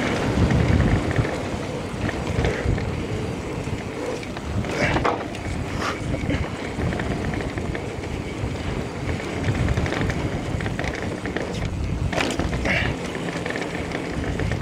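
Wind buffeting the camera microphone over the rumble and rattle of an electric mountain bike rolling fast down dirt singletrack, with a few sharp knocks and clatters from the bike over bumps.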